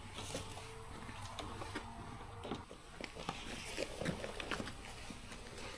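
Faint scattered taps, clicks and rustles of boxed shower-kit packaging being handled and unloaded.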